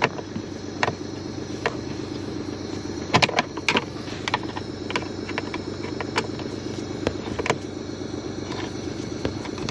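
A steady low hum from the running car, with scattered sharp clicks and small metallic rattles from a Torx screwdriver and screws being undone under the dashboard. The loudest cluster of clicks comes a little after three seconds in.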